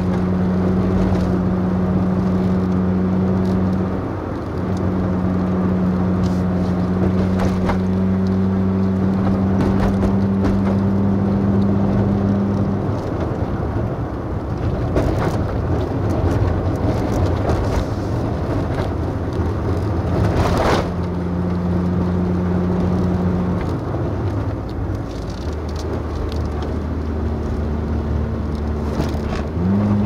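Vehicle engine pulling up a steep mountain road, its hum holding steady for several seconds, dropping out in the middle so that only road and tyre noise is left, then returning at a lower note and rising again near the end. A single sharp knock about two-thirds of the way through.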